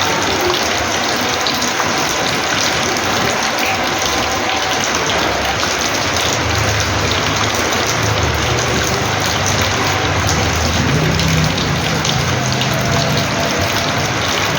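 Heavy rainwater pouring and splashing steadily onto a house's porch floor. A low hum joins in about halfway through.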